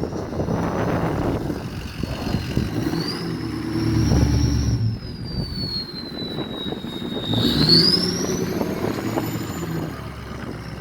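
Ford 6.0 Powerstroke V8 turbo-diesel running, its turbocharger whistle climbing each time the engine is given throttle and slowly falling as it eases off. The whistle climbs twice, the second time higher.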